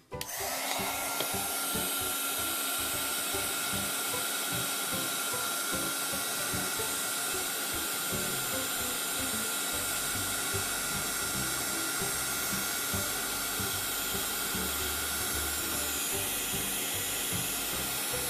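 Chandler Tool embossing heat gun switched on at its high setting, starting suddenly and then blowing steadily with a fan whir and a faint steady whine.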